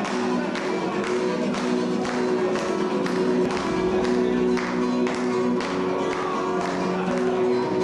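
Acoustic guitar strumming a steady accompaniment, with chords struck about twice a second over ringing held notes.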